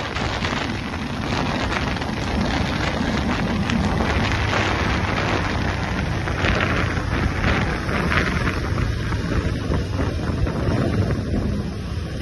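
Heavy wind noise buffeting the microphone of a motorcycle riding at speed, with the motorcycle's engine running steadily underneath.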